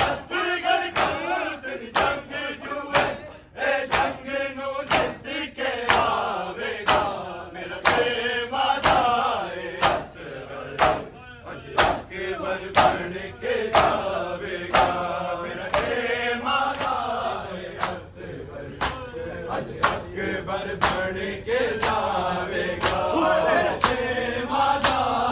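Group of men chanting a noha in unison, with their chest-beating (matam) slaps sounding in a steady rhythm beneath the voices.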